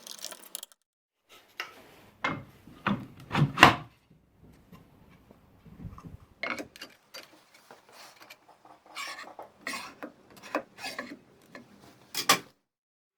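Hand work on wooden parts and tools: a string of irregular knocks, clicks and short scrapes, the loudest knocks about three and a half seconds in and near the end, broken by brief dead-silent gaps.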